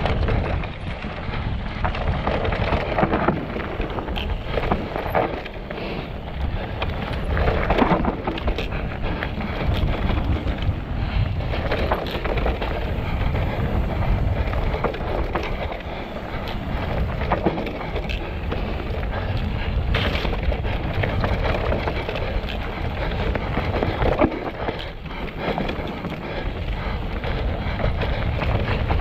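Mountain bike descending a rough, rocky trail: wind buffeting the microphone over a steady low rumble of tyres on rock, with frequent knocks and rattles from the bike.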